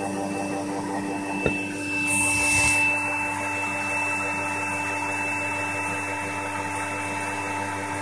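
Vacuum cleaner motor running steadily, pulling air and dust through a homemade two-container cyclone separator, with a constant hum and air rush. A short click about a second and a half in, and a brief swell of hissing air just after. Air is leaking in where the two containers meet, which lowers the suction.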